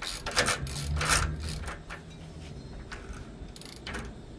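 Socket ratchet wrench clicking in short strokes as it turns the hub nut on a truck's axle end. The strokes come mostly in the first two seconds, with a low hum underneath about a second in.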